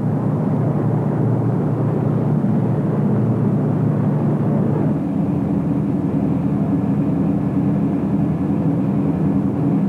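Patrol boat's diesel engines running under way at speed, a steady low drone over the rush of water, its tone shifting slightly about halfway through.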